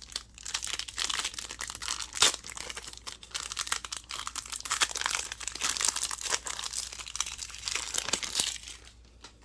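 A foil trading-card booster pack wrapper being torn open and crinkled: a dense, irregular crackle that stops shortly before the end.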